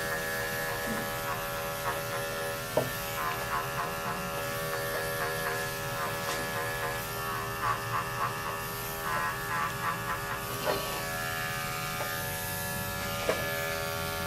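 Electric pet clippers running with a steady buzz, cutting through a long-haired cat's coat, with scattered short clicks.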